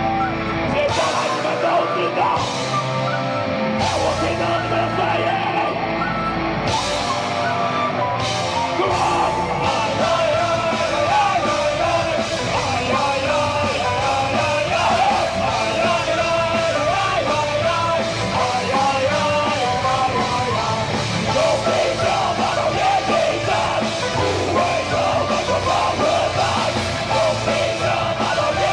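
Heavy metal band playing live, with distorted guitars and drums going full on, and yelled vocals over the top. Several crashing accents come in the first few seconds, then the playing runs dense and steady.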